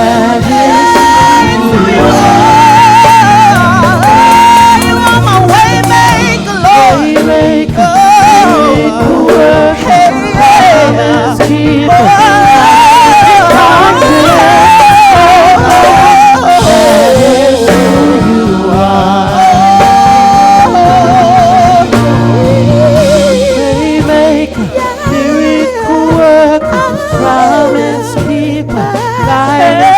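Live gospel praise band playing: a lead voice sings a wavering, ornamented melody with vibrato over bass and drums.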